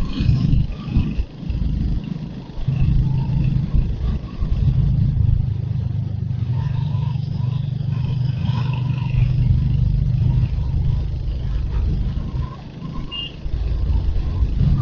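Royal Enfield Hunter 350's 349 cc single-cylinder engine running under way, a low, steady rumble as the motorcycle rides along. The engine note drops back briefly about two seconds in and again near the end.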